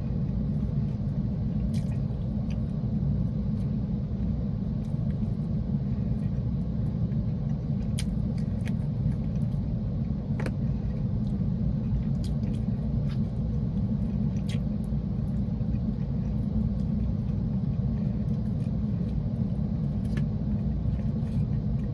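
Steady low rumble inside a parked car's cabin from its idling engine, with scattered faint clicks and taps of eating and handling food.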